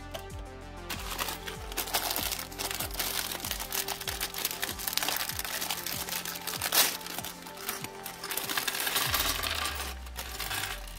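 Clear plastic Lego parts bag crinkling as it is handled and shaken, with small plastic bricks clicking, and a sharp click about seven seconds in. Synthwave background music plays throughout.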